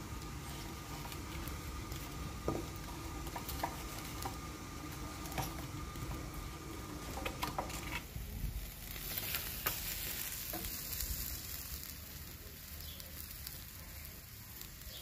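Wood fire crackling under a pot in a cinder-block stove, with scattered sharp pops. About halfway it gives way to whole fish sizzling on a wire grill over charcoal in a clay stove, a steady hiss with an occasional pop.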